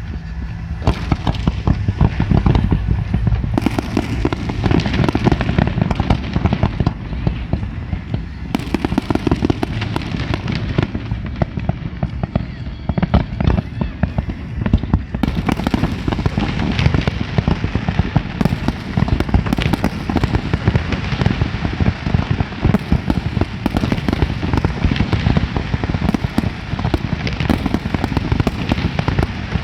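Fireworks display: a dense, continuous barrage of bangs and crackling shells, many bursts a second, without a break.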